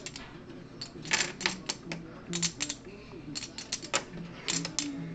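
Clay poker chips clicking against each other as they are handled and stacked, in several quick bursts of rapid clicks.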